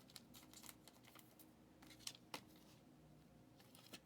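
Near silence with a few faint clicks of trading cards being handled, two slightly louder ones about two seconds in.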